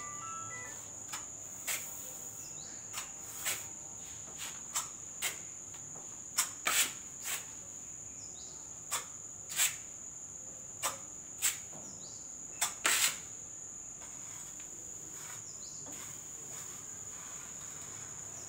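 Metal putty knife clicking and scraping in short irregular strokes as white putty is loaded onto it and spread along an edge. The strokes are loudest around the middle and thin out near the end, over a steady high-pitched whine.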